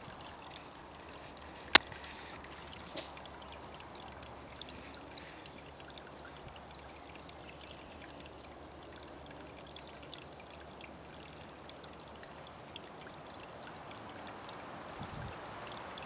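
Steady rushing background noise, with one loud sharp click about two seconds in and faint scattered ticks.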